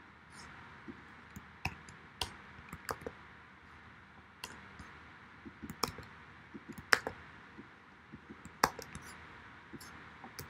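Computer keyboard keys clicking in scattered single taps and short quick runs, over a faint steady hiss.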